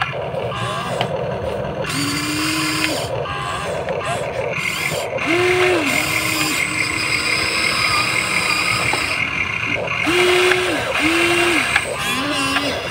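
Huina 1593 remote-control excavator's electric motors whining in several short runs as the boom, arm and bucket move, each whine rising in pitch as it starts and dropping as it stops.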